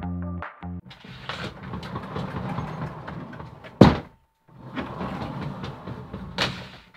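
Sliding door rolling along its track twice, each run ending in a sharp bang as the door strikes the wall at the end of its travel; the loudest bang comes about four seconds in. This is the noisy 'ガンッ' hit of an uncushioned sliding door.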